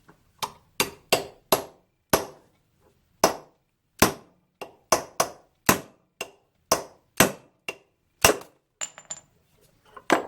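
Hammer blows on a punch, knocking a stuck part out of a cast-iron International Type M engine fuel mixer: about seventeen sharp, ringing metal strikes at an uneven pace, then a few lighter clinks near the end.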